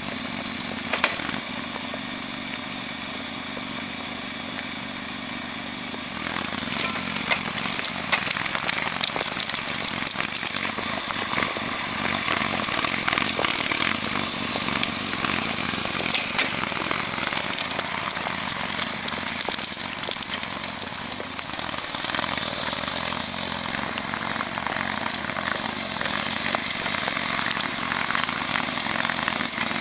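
Small engine-driven machinery running steadily, growing louder and busier about six seconds in.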